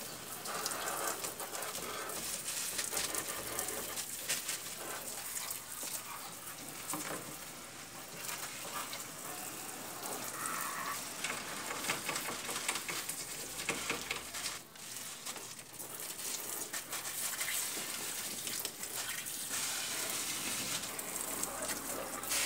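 Water from a garden hose spraying and splashing over engine-bay parts while they are scrubbed with a brush: a steady hiss with irregular scratchy strokes.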